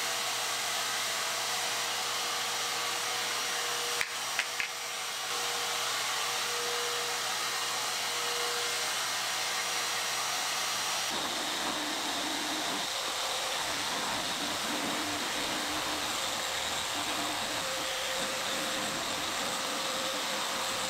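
Festool Rotex random orbital sander running on a mahogany door, a steady whir and hiss. It dips briefly with a few clicks about four seconds in, and the sound turns deeper about eleven seconds in.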